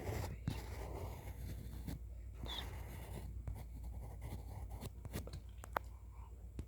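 Close-up pencil sketching: scratchy strokes with a few sharp ticks.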